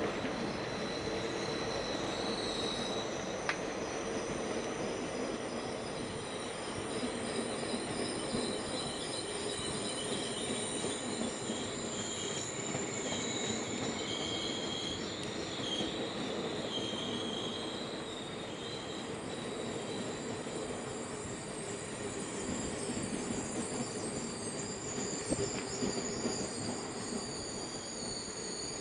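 The Blue Train rolling past on the rails: a steady rumble of wheels with several high, sustained squealing tones from the wheels.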